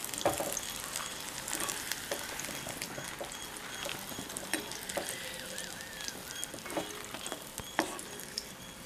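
Hot sesame oil sizzling in a kadai as the last fried brinjal slices are scooped out, with scattered clicks of the metal ladle knocking against the pan and bowl.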